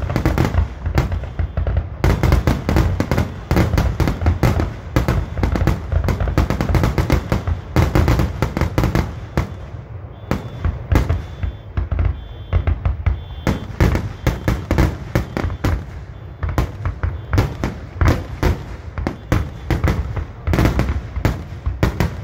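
Aerial fireworks finale: a dense barrage of shell bursts, many sharp bangs a second overlapping one another, easing a little about halfway before picking up again.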